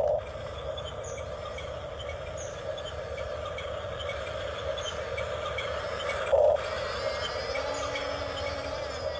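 Small electric motor of an RC model excavator humming steadily, with two brief louder surges, one at the start and one about six and a half seconds in.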